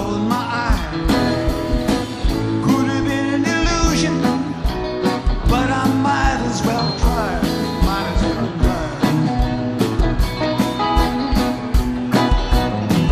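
Rock band music: guitar, bass and drums over a steady beat, with a bending melody line above.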